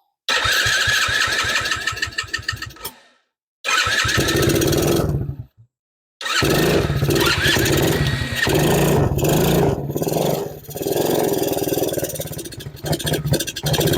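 Tao Tao 100cc ATV's small single-cylinder engine cranked by its electric starter, catching briefly about four seconds in, then firing up and running raggedly, surging up and down, from about six seconds. It runs only on fuel squirted into the carburetor throat: the carburetor itself is not feeding fuel.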